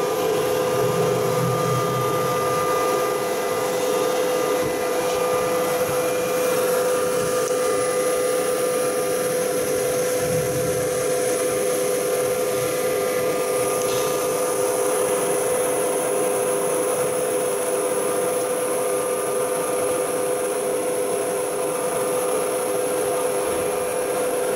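An ELECNC1535ATC CNC router's spindle running steadily at high speed while the bit works the sheet, giving a constant mid-pitched tone over machine noise.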